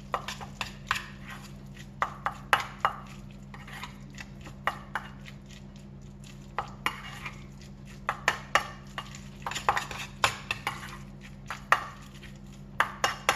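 A utensil knocking and scraping against a mixing bowl in irregular clinks while chopped raw prawns are stirred together with their seasonings.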